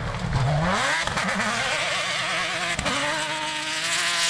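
Off-road rally prototype buggy's engine under hard driving: the revs drop, then climb steeply as it accelerates, waver up and down, break off briefly near three seconds in, and hold high to the end.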